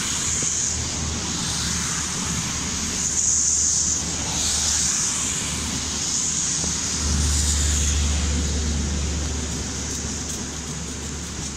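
Charter train's passenger coaches rolling past on the curve, a steady rumble with a high hiss over it. About seven seconds in, a low diesel engine hum grows as the rear Class 67 locomotive draws near.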